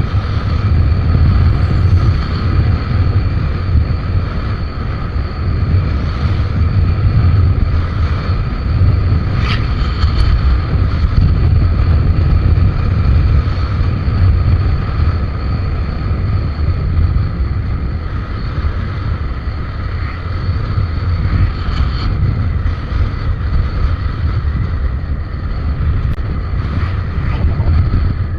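A Suzuki Avenis scooter running steadily on the move, with wind rushing over the microphone as a heavy, constant rumble.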